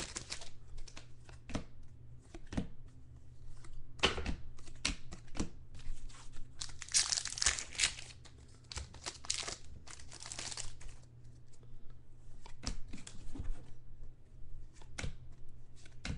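Trading card pack wrappers being torn open and crinkled as the cards are handled: irregular rustles and small ticks, with longer rustling stretches about seven and ten seconds in.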